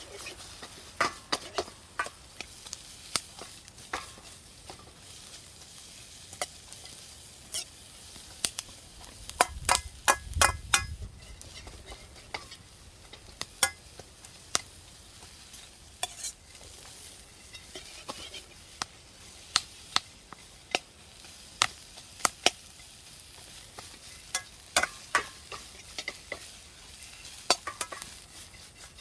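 Champon vegetables sizzling as they are stir-fried in a pan, with frequent sharp clicks of a utensil knocking against the pan. There is a cluster of louder knocks about ten seconds in.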